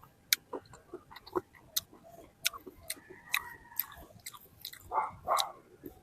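Close-up chewing of fresh fruit: irregular wet mouth clicks and smacks a few times a second, with a louder, longer mouth noise about five seconds in.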